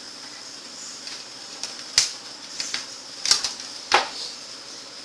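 Speaker wire leads being snipped with a cutting tool: a few sharp clicks, the loudest about two seconds in and two more near the end, over a steady faint hiss.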